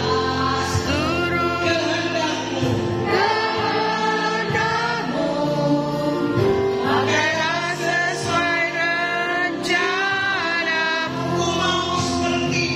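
A slow Christian worship song: voices singing together, with female voices among them, over a steady instrumental accompaniment.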